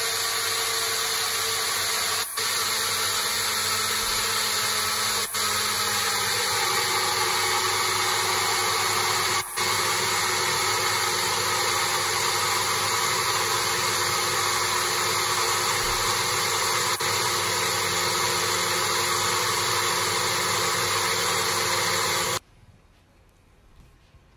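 Personal bullet-style blender motor running steadily while the cup is held pressed down on its base, puréeing cooked vegetables. It drops out for an instant a few times and stops abruptly near the end.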